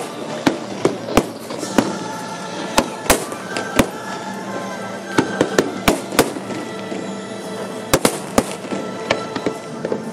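Aerial fireworks bursting overhead: a fast, irregular string of sharp bangs and cracks, about two a second, some closely doubled.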